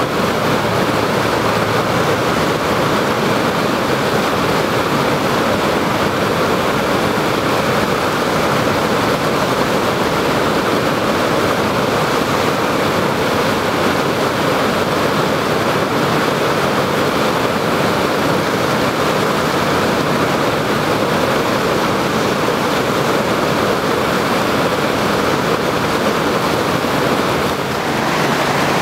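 Loud, steady rush of whitewater from a standing river wave. The sound dips briefly near the end.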